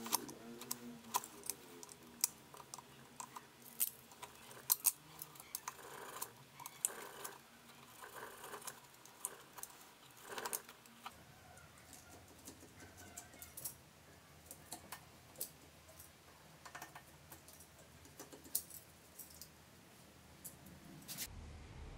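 Irregular light clicks and taps with a few short scraping strokes from hand work with a small knife, trimming leather on a wooden piece held in a metal lathe chuck. The clicks come thick in the first half and thin out after.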